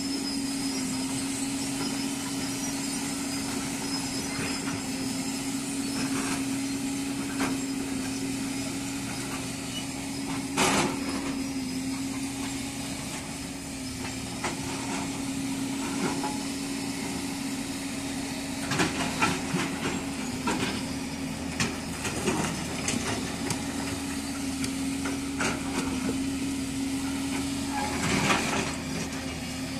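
A 220-class hydraulic excavator's diesel engine running at a steady pitch, with sharp knocks and clanks from time to time as it works large stones. The loudest knock is about ten seconds in, with a cluster about two-thirds of the way through and another near the end.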